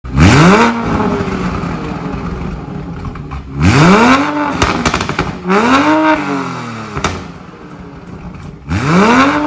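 2020 Toyota Supra's 3.0-litre turbocharged inline-six free-revved through its exhaust four times, each rev rising quickly and falling back to idle, with pops and crackles from the exhaust as the revs drop.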